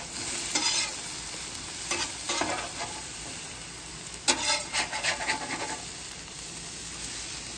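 Sliced potatoes and onions sizzling in oil on a Blackstone 22-inch griddle's steel top, with a metal spatula scraping across the griddle to toss them in several separate strokes, the loudest a little past four seconds in.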